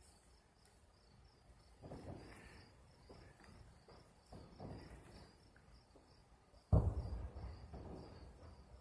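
Fireworks going off: two softer, dull booms about two and four and a half seconds in, then a louder sudden boom near the end that dies away over a second or so. A steady high pulsing chirp runs underneath.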